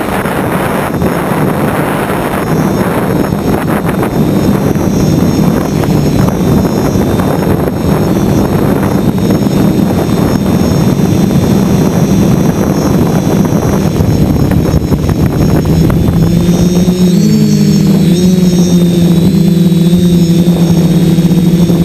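DJI 450 quadcopter's electric motors and propellers running loud, with a rushing wind noise. About two-thirds of the way in, the rush drops away and the motors' whine comes through clearly, its pitch wavering up and down.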